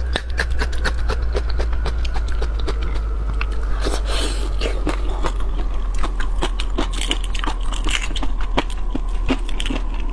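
Shell of a raw red shrimp crackling and clicking as it is pulled apart and peeled by hand close to a clip-on microphone: many small, irregular sharp clicks. A steady low hum runs underneath.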